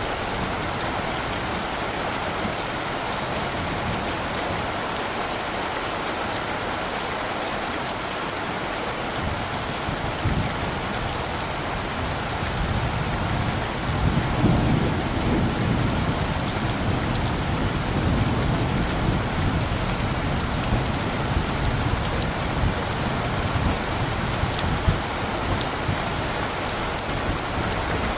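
Steady rain falling, with a low rumble of light thunder building about halfway through.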